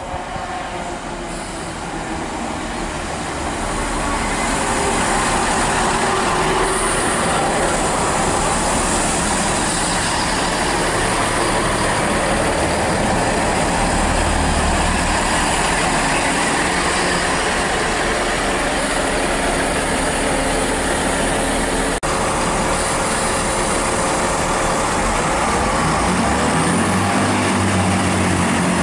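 Great Western Railway Class 166 Turbo diesel multiple unit running into the platform, a steady noise of wheels and underfloor diesel engines that builds over the first few seconds. A single sharp click comes about three-quarters of the way through, and near the end the engine note rises in pitch.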